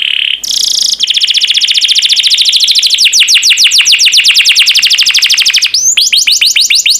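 Domestic canary singing. A short steady high note and a brief buzzy burst lead into a long, fast trill of rapidly repeated downward-sweeping notes, which shifts near the end to a slower series of sweeping notes.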